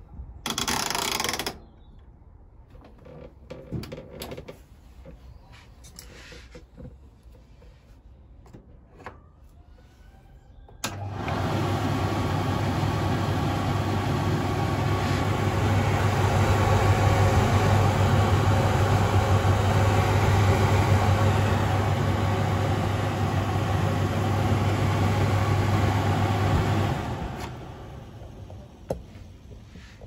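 Hotpoint Aquarius TCM580 condenser tumble dryer's motor and fan running steadily with a strong low hum, starting abruptly about a third of the way in and running down after about sixteen seconds. The dryer has a broken drive belt, so the drum is not turning. A short burst of noise comes near the start as the timer dial is turned.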